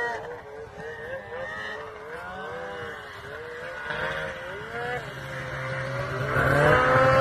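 Snowmobile engine running under varying throttle, its pitch rising and falling repeatedly, then growing louder and holding a steadier, higher note near the end.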